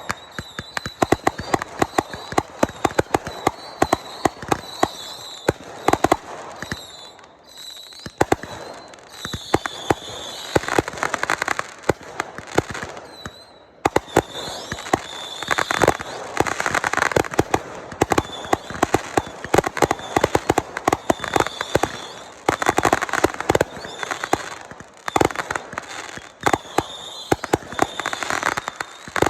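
Fireworks going off in rapid succession: many sharp bangs and pops, with several stretches of dense crackling.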